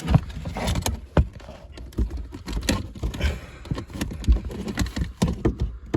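Irregular clicks, knocks and rattles of plastic car trim being handled and pried loose, a part coming off by hand.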